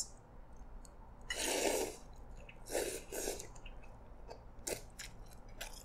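Slurping Hokkien prawn mee, noodles in prawn broth, off a spoon. One longer slurp comes about a second and a half in and two shorter ones near the middle, followed by a few faint clicks.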